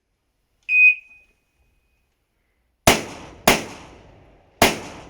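Electronic shot timer's start beep, one short high tone about a second in, followed about two seconds later by three rifle shots, the second coming quickly after the first and the third about a second later, each with a short echo.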